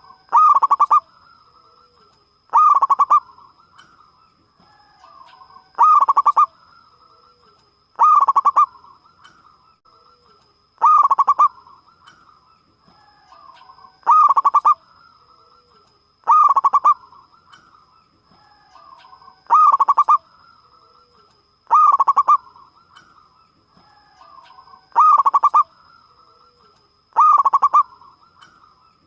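Zebra dove (perkutut) cooing: a loud, full coo phrase repeated about every two and a half to three seconds, about eleven times, with softer cooing between the phrases. A faint, steady high-pitched whine runs underneath.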